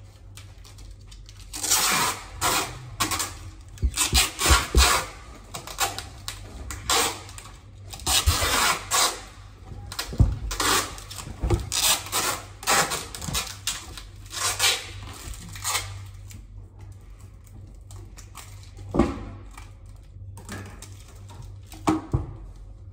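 Handling noise from goods being packed or unpacked: a run of rustling and scraping bursts with knocks, then a couple of single soft knocks near the end.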